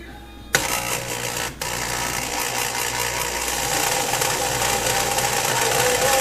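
Electric drill running continuously to back out a mounting bolt of an over-the-range microwave. It starts about half a second in, breaks off briefly, then runs steadily until the bolt comes out.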